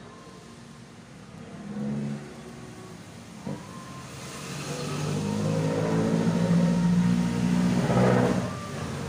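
A motor vehicle's engine passing by, growing louder from about four seconds in and dropping away at about eight and a half seconds. There is one short knock about three and a half seconds in.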